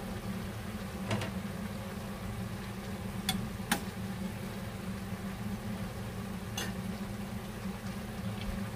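Covered pot heating on a gas stove burner: a steady low hum and faint hiss, with a few sharp clicks scattered through.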